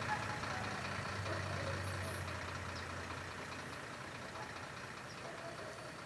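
Vehicle engine running at a steady low idle, slowly fading out.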